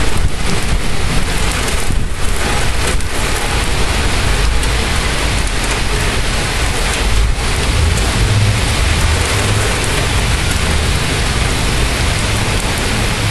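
Heavy thunderstorm rain pouring down in a loud, steady hiss, with a low rumble growing stronger in the second half.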